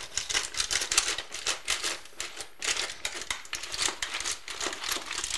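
Steamed bouchot mussel shells clattering against each other and the stainless-steel pot as they are stirred with a wire-mesh skimmer: a dense run of small clicks and rattles, with a brief lull about halfway through.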